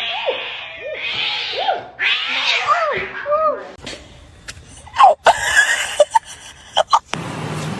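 Domestic cat meowing, several short calls rising and falling in pitch over the first few seconds, followed by a few sharp knocks.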